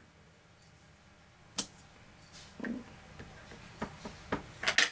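Wooden-block rubber stamp being tapped onto an ink pad and pressed onto an acetate sheet on a table: a few scattered light knocks and clicks, with a quick cluster near the end.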